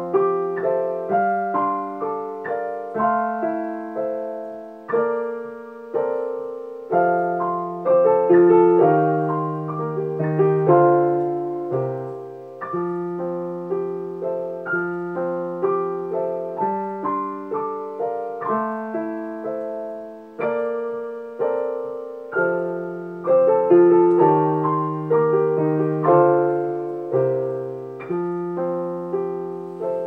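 Piano duet played four hands on one keyboard: struck chords and melody notes that ring and fade over sustained low bass notes, with new notes coming roughly every second and fuller, louder passages about a third of the way in and again near the end.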